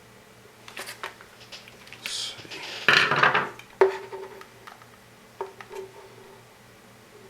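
Tools and small hard parts handled on a workbench: scattered clicks, a short scrape, a loud clatter, then two sharp knocks that each ring briefly, like hard objects set down.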